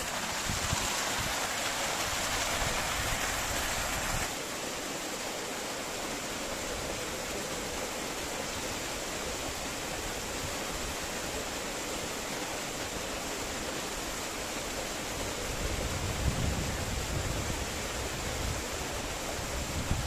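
Steady rush of flowing river water, a little softer after about four seconds, with a low rumble swelling near the end.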